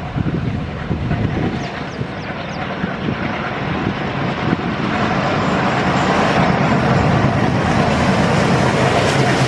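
WDM3D diesel-electric locomotive running as it approaches with a passenger train, its engine rumble growing steadily louder.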